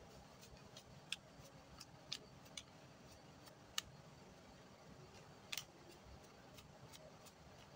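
Near silence broken by about half a dozen faint, irregular clicks and taps from a spoon and containers being handled while fishing bait is measured out.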